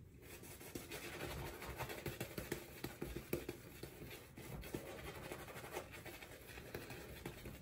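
Simpson Chubby badger-hair shaving brush working soap lather over a bearded face: a soft, continuous bristly rubbing, dotted with small wet clicks.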